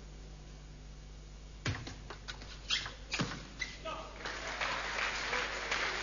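Celluloid table tennis ball clicking sharply off bats and table in a quick rally, about eight hits in under two seconds. From about four seconds in, a crowd applauds, growing louder.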